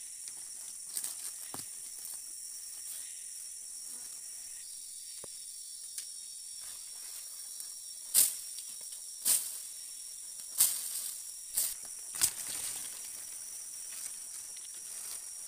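Steady high-pitched drone of rainforest insects, with footsteps and sharp cracks of twigs and dry leaves as someone pushes through undergrowth. The cracks are loudest and most frequent between about 8 and 12 seconds in.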